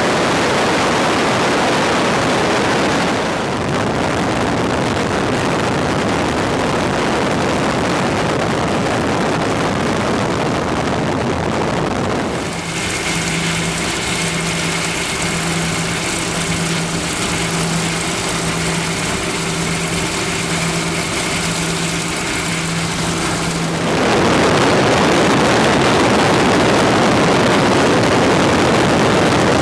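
Piston aircraft engine noise mixed with a heavy rush of wind. About twelve seconds in it changes to a steady engine drone with a slow throbbing hum, and about twenty-four seconds in the louder rushing noise returns.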